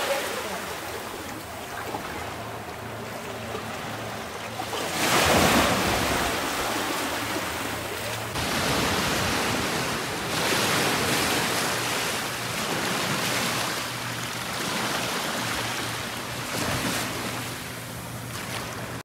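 Small sea waves breaking and washing up a sandy beach, the surf swelling and easing every few seconds, with one stronger surge about five seconds in.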